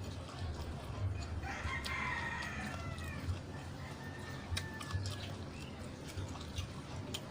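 A rooster crowing once, about a second in, lasting about two seconds and falling in pitch at the end, with a few short clicks later on.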